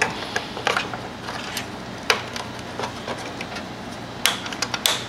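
Scattered plastic clicks and taps as a wiring harness plug is worked through the back of a plastic Lincoln MKT headlight housing, a few sharper knocks near the end, over a low steady hum.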